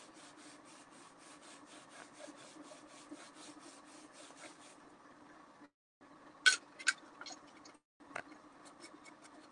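Sponge rubbing surface wax over a chalk-pasted board in quick, even back-and-forth strokes, faint. The strokes stop about five seconds in, followed by a few sharp clicks.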